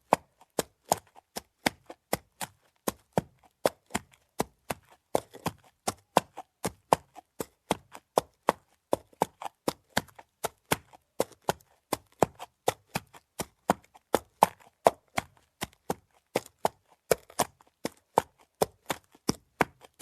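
Saddle creaking in a steady rhythm: short, sharp creaks about three a second.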